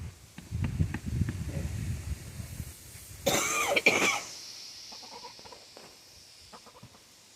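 Hen in a foot-bath tub: scattered light taps and low rumbling from her moving about, then a loud, rough, cough-like burst lasting about a second, starting about three seconds in.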